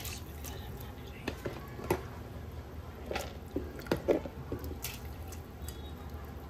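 Washed dhuli urad dal being tipped into a pot of turmeric water: scattered small wet plops and light clicks over a low steady hum.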